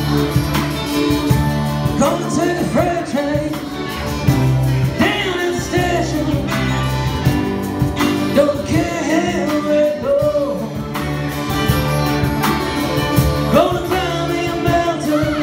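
Live rock band playing: a Stratocaster-style electric guitar over drums and a steady bass, with a sung vocal line.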